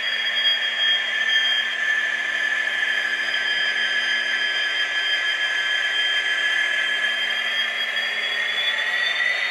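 N gauge Dapol Class 66 model locomotive running slowly, its DCC sound decoder playing diesel engine sound through a small speaker, with a steady high-pitched whine whose pitch shifts slightly near the end.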